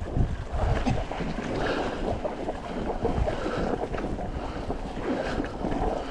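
Mountain bike tires crunching through fresh snow in a continuous crackle, with wind rumbling on the microphone.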